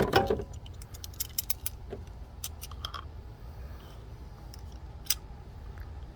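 Light metallic clicks and clinks of locking pliers being worked onto a spring-type hose clamp, with the sharpest clicks at the start and one more about five seconds in.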